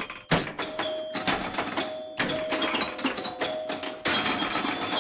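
Cartoon pinball-machine sound effects: a rapid string of knocks and bell dings with short held electronic tones, growing denser about four seconds in.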